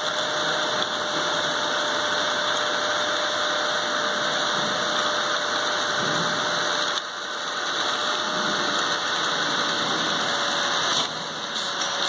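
Small electric motor of a homemade sheet-metal vacuum cleaner running steadily: a hissing whir with a faint, steady whine through it. It dips briefly about seven seconds in and drops a little near the end.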